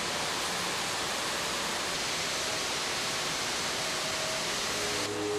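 Oxy-fuel cutting torches hissing steadily as they cut through a continuously cast steel strand to part off a slab. The hiss drops away near the end as faint music comes in.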